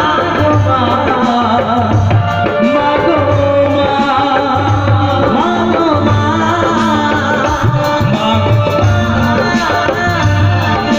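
Live Bengali baul song: a male singer sings over a band of dhol, keyboard and bass guitar, with a steady drum beat about once a second.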